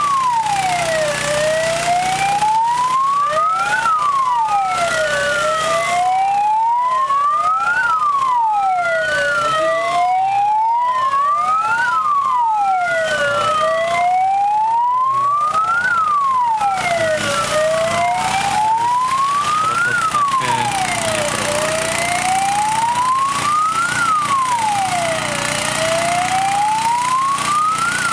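Fire engine siren wailing: a slow glide up and a quicker fall, repeating about every four seconds. From about three seconds in until about fourteen seconds, a second siren wails out of step with it.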